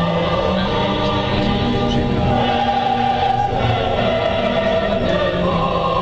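Background music: a choir singing long held chords.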